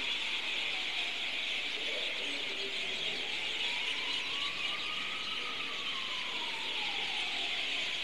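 A large flock of birds screeching and chattering together in a tree, a dense, steady wall of high-pitched calls. A fainter whine underneath rises slowly in pitch through the middle, then falls away near the end.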